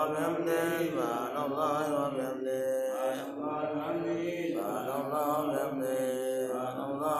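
Men's voices chanting an Arabic devotional recitation in a slow, melodic, wavering line with only brief breaks for breath.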